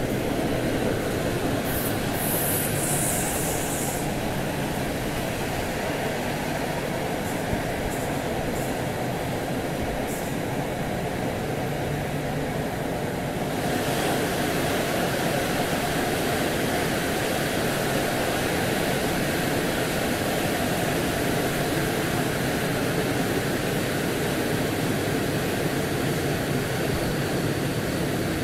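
TLK passenger train carriage running on the rails, heard from the carriage window: a steady rumble and rush of wheels on track, with a brief high hiss about two seconds in. The sound grows brighter about halfway through as the carriage runs alongside the station platform.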